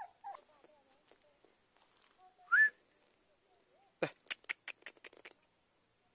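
Young Bhotiya/Gaddi puppies whimpering in thin, wavering squeals, with one louder, short rising squeal about two and a half seconds in. Later comes a quick run of about seven sharp clicks.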